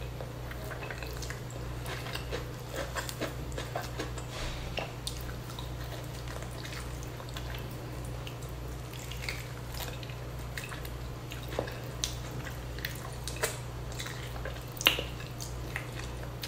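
Close-miked eating: chewing and wet mouth clicks as spicy duck meat is bitten and pulled apart by hand, in many short irregular clicks, a sharp louder one near the end. A steady low hum runs underneath.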